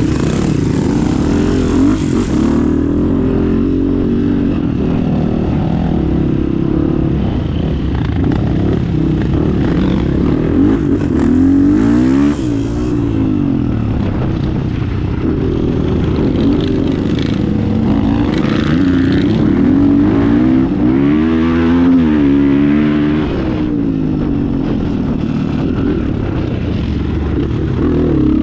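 A motor vehicle engine running under load, its revs rising and falling again and again as it works along a rough trail.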